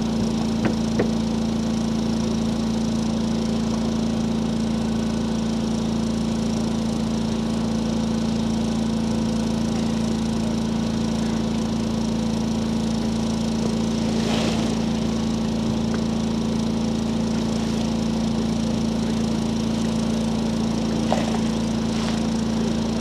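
A small engine running steadily at one unchanging pitch, with a few faint clicks and knocks over it.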